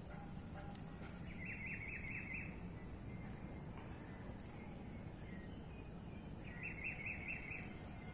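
A small bird singing twice, each time a quick run of about five repeated notes, over a steady low background noise.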